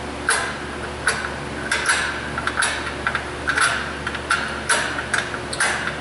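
Parking-brake star wheel adjuster in a Hyundai Sonata's rear drum-in-hat rotor clicking tooth by tooth as a 90-degree pick hooks it and turns it back, about a dozen sharp clicks at roughly two a second, unevenly spaced. The parking-brake shoes are being backed off so the rotor can come off.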